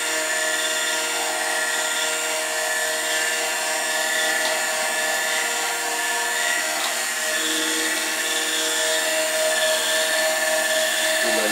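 Benchtop drum sander running steadily: an even motor hum with a whine in it.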